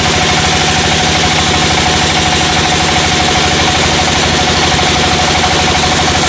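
Sawmill engine running steadily at constant speed, with a steady high tone over its note.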